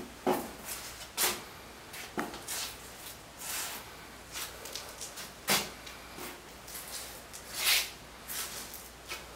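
Irregular taps and knocks with a few short rustling swishes: handling noise from a handheld camera and footsteps on a tile floor.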